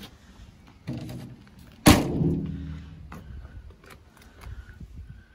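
A Land Rover Series II pickup's cab door slammed shut: one loud bang about two seconds in with a short metallic ring, after a lighter knock a second earlier.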